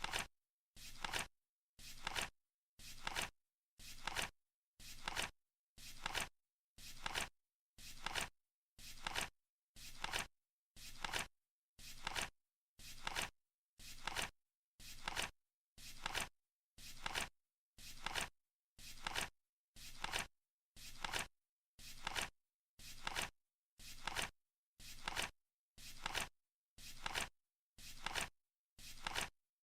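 Flip clock counting down: a short swishing flap once every second, each swelling for about half a second and stopping sharply, with silence between.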